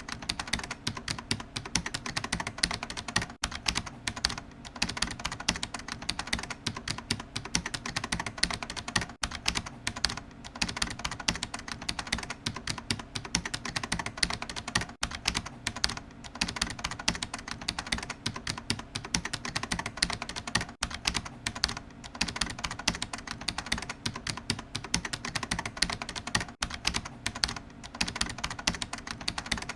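Computer keyboard being typed on fast and continuously, a dense run of key clicks with only brief gaps.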